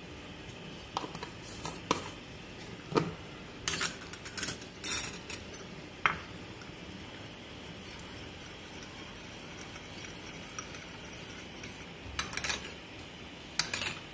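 A steel spoon stirring milk with food colouring in a small glass bowl, clinking against the glass: scattered clinks in the first half, a quieter stretch of stirring in the middle, and a few more clinks near the end.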